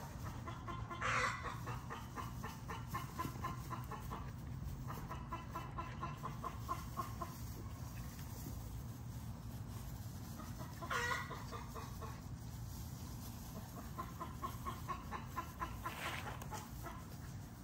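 Backyard chickens clucking in runs of quick clucks, with a short loud squawk about a second in and another about eleven seconds in.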